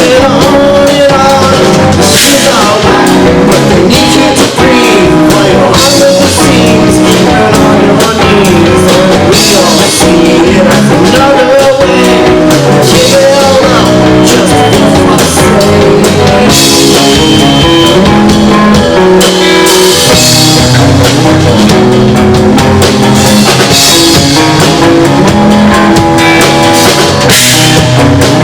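Live rock band playing: guitar, bass guitar and drum kit, loud and steady.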